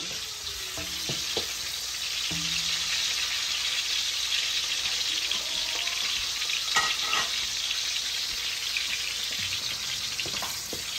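Sliced red onions frying in oil in a large aluminium pot, with a steady high sizzle, stirred now and then with a wooden spoon.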